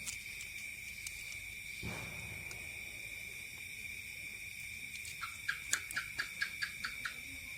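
Insects droning in one steady, high, unbroken tone, with a quick run of about nine short chirps from another animal a little after five seconds in. A soft thump about two seconds in.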